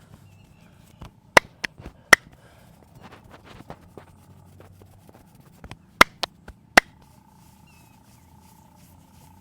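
Sharp, quick hand strikes of a head and back massage: three loud ones about a second and a half to two seconds in, and another cluster of three about six to seven seconds in, with softer taps between.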